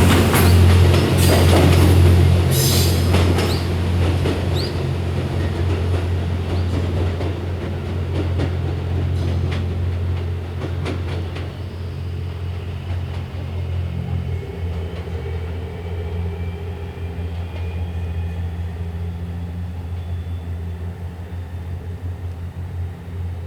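JR West Series 87 Twilight Express Mizukaze diesel-electric train passing over a level crossing: a low steady rumble with a rapid run of wheel clicks and knocks in the first dozen seconds. The sound then fades steadily as the train draws away.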